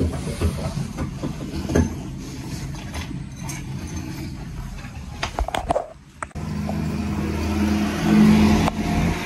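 Knocks and clatter of handling, then about six seconds in a refrigerant vacuum pump switches on and runs with a steady low hum, evacuating the air conditioner's refrigerant lines.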